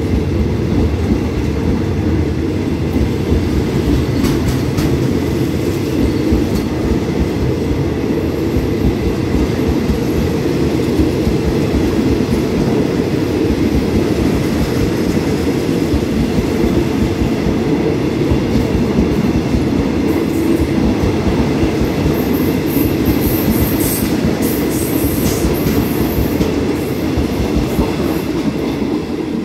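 Passenger carriages of a departing rapid train rolling past at close range: a steady rumble of steel wheels on the rails, which starts to fade at the very end as the last coach goes by.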